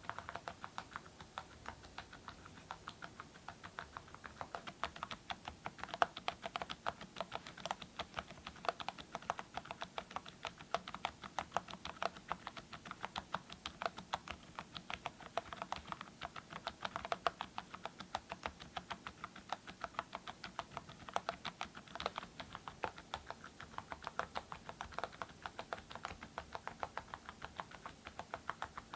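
Continuous fast typing on a mechanical keyboard with full-metal Awekeys keycaps and silent (dampened) switches: a dense stream of short, muted key clicks.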